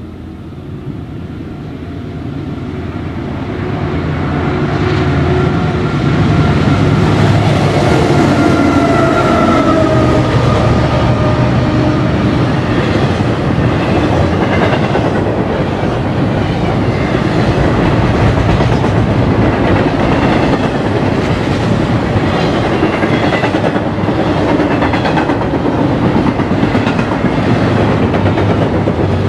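Diesel-hauled double-stack container freight train approaching and passing close by. It grows louder over the first several seconds, and the locomotives' engine tones dip in pitch as they go by about nine to ten seconds in. Then comes a steady rumble and clatter of the stack cars' wheels over the rails.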